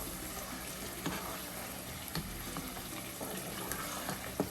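Chopped onions frying in palm oil in a pot: a steady sizzle, with a few short knocks and scrapes of a spoon stirring the pan.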